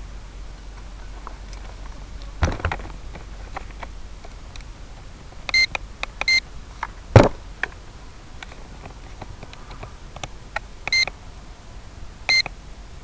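Four short, high electronic beeps: a pair about halfway through and two more near the end, over a low hiss. Scattered clicks and a sharp knock a little after the middle, which is the loudest sound.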